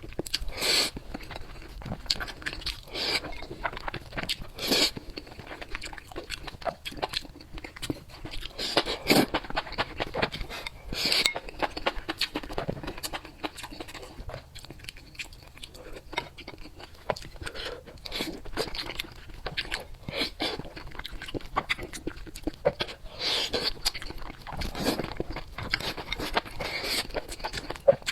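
A person eating crunchy food: bites and chewing make a dense, irregular run of crisp crunches and clicks.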